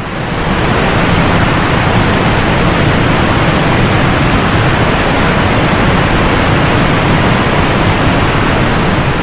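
Small waterfall rushing: a steady wash of falling water that swells in over the first second.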